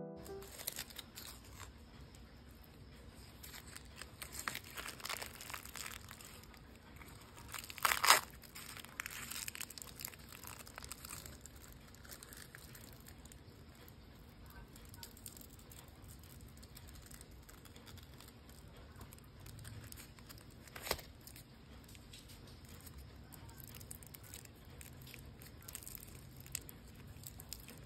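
A freshly baked bagel being torn apart by hand: faint tearing and crackling of the crust and crumb, with crinkling of its paper liner. Two sharp clicks, one about eight seconds in and one about twenty-one seconds in.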